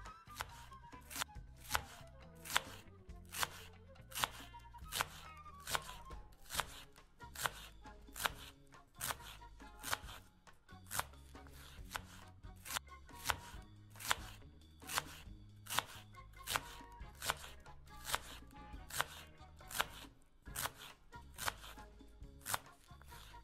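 Kitchen knife chopping a fresh cabbage into small pieces, a steady series of crisp strokes about three every two seconds, with soft background music underneath.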